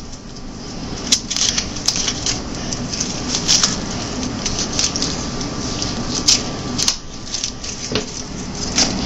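Dry papery husks being torn and peeled off tomatillos by hand: irregular crackling and rustling, with short sharp clicks scattered throughout, over a steady low hum.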